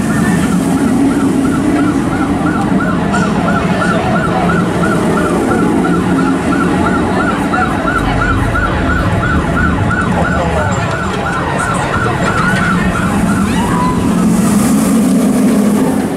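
A siren-like warbling tone repeats about three or four times a second, over a steady low hum and crowd noise, and stops shortly before the end. Near the end a rushing noise rises.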